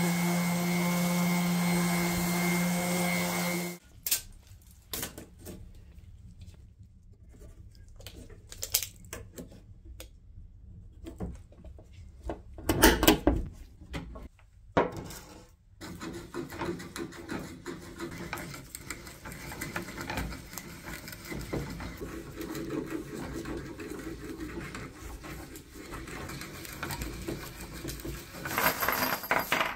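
Electric random orbital sander running steadily on a pine board, cutting off abruptly about four seconds in. Scattered knocks and handling of a wooden plank follow. Near the end, an electric drill in a drill stand bores a twist bit into the wood.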